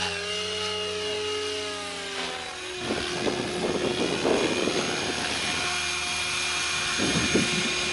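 Electric RC helicopter's motor and rotor running: a steady pitched whine that drops in pitch about two seconds in, followed by uneven swishing of the rotor blades as it flies low and settles.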